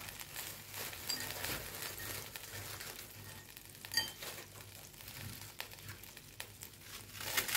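Dry toasted bread being broken into small pieces by hand, faint crackling and crunching, with a single ringing clink of a utensil or dish about four seconds in.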